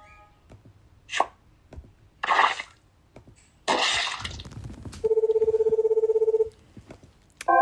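A string of short, unrelated sound effects: a sharp crack, two hissing bursts of noise, then a buzzing electronic tone like a telephone ring or buzzer lasting about a second and a half, and a struck chord starting just before the end.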